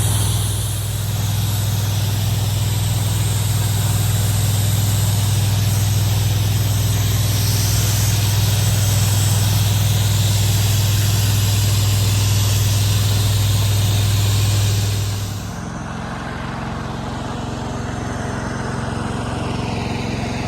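Gas-engine pressure washer running under load with the water jet hissing. About 15 seconds in the spray stops and the hiss falls away, and the engine carries on running more quietly.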